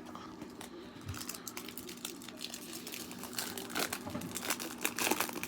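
Foil wrapper of a trading card pack being crinkled and torn open by hand, with irregular crackling that thickens over the last couple of seconds.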